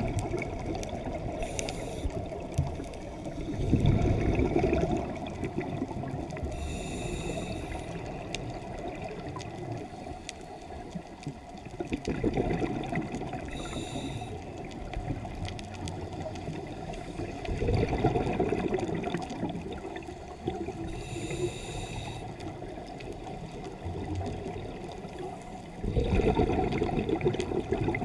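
A scuba diver breathing through a regulator, recorded underwater. Short hissing inhalations alternate with longer rumbling gushes of exhaled bubbles, about four breaths in all.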